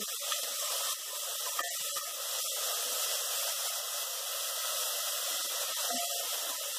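Chopped onion and garlic sizzling steadily in hot olive oil in a cast-iron pot.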